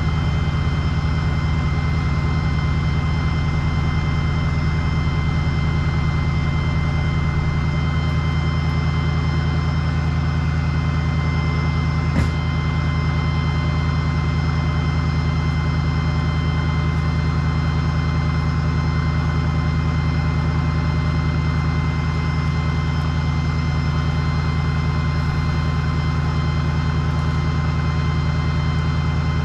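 Heavy engine running at a steady speed, with a steady high whine over it and one sharp click about twelve seconds in.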